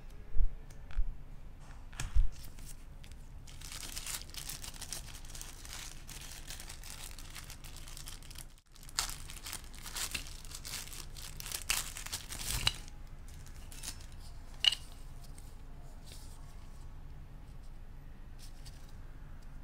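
White paper wrapping being unfolded, crinkled and torn open by hand: a dense, crackling rustle lasting several seconds. A few soft thumps come before it, and a single click follows later.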